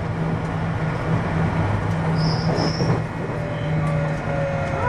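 Inside a JR West 521 series electric train with a Toshiba IGBT-VVVF inverter, running along the line: a steady rumble of wheels and running gear with a low hum. A faint motor tone falls slightly in pitch from about halfway, and two short high squeals come a little after two seconds.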